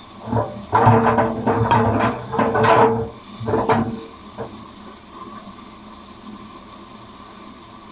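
ATLANT 50U101 washing machine running, with about three and a half seconds of irregular knocking and clattering from the load of paint rollers and brushes turning in the drum, over a steady hum that goes on after.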